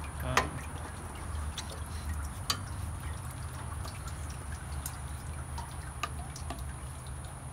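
A few scattered sharp clicks and knocks of tools and metal parts being handled around a tractor's radiator and hoses, over a steady low hum.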